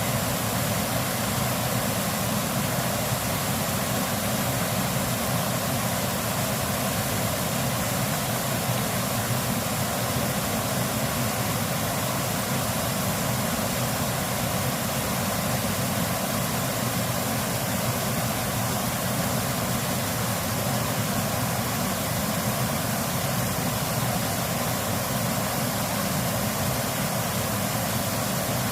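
Mountain valley stream rushing steadily, an even wash of water noise that does not change.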